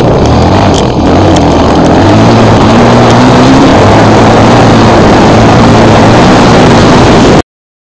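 Off-road motorcycle engine running loud and close, its note fairly steady with a slight rise a couple of seconds in, over a few sharp knocks in the first second and a half. The sound cuts off suddenly near the end.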